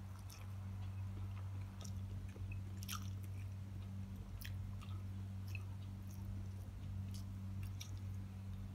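Close-up sounds of a person chewing a mouthful of rice and fried fish: scattered soft clicks and smacks of the mouth, over a steady low hum.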